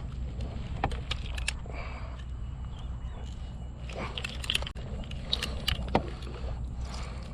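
Scattered sharp clicks and knocks of gear and a fish being handled aboard a kayak, the loudest about six seconds in, over a steady low rumble.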